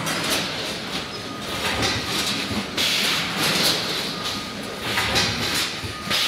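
Chicken-nugget pouch packing line running: conveyor belts and machine parts give a steady rattling clatter, with a rushing hiss that swells every second or two.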